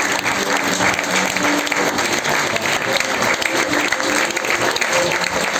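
Audience applauding steadily and densely, with music playing quietly underneath.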